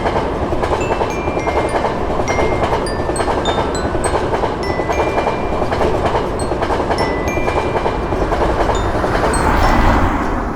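A train passing at speed: a steady rush of wheel and rail noise that grows loudest near the end, then starts to fade. Light glockenspiel-like music notes chime over it.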